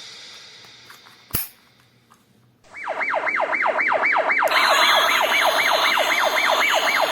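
Electronic siren sound effect from a toy remote-control car, a rapid wail that sweeps down in pitch about four times a second. It starts a little over halfway in and is joined by a steady whirring hiss about halfway through.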